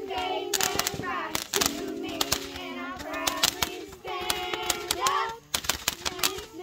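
A song with a sung melody plays, with the sharp crackles and pops of ground fountain fireworks breaking in over it in quick clusters.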